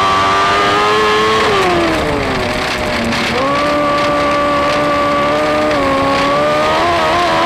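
Dwarf car's engine at racing speed, heard from the cockpit: its pitch falls off as the throttle is lifted into a turn about two seconds in, then jumps back up as the power comes on again a little after three seconds and holds, with a brief dip and climb near the end.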